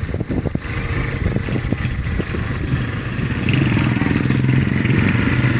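Street traffic: vehicle engines running, with a nearby engine's steady hum growing louder about three and a half seconds in.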